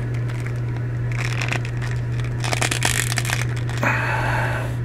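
Handling noise of a 1/6-scale action figure: plastic and fabric scraping and rustling in three short spells as a belt is worked up over the figure's legs by hand, over a steady low hum.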